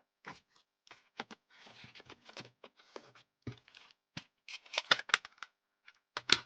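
Plastic CD jewel cases and photocards being handled: a run of sharp plastic clicks and taps with short rustles, busiest about four and a half seconds in and again near the end.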